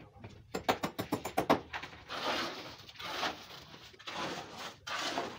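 Stones clattering in a quick run of hard knocks about a second in, then rough bursts of gravel and rubble sliding and scraping as stone fill is dumped and spread over the tank floor.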